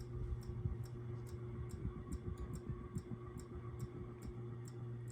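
Restore and Restyle airplane ceiling fan running on low speed: a steady motor hum with a light regular ticking about three times a second, and the moving air fluttering on the microphone.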